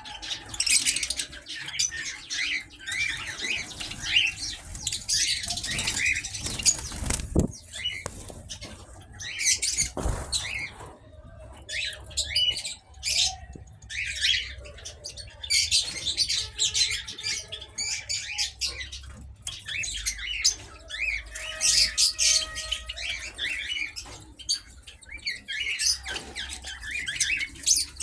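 A flock of small aviary birds chirping and squawking together, a dense, continuous chatter of short high calls with a few longer held notes.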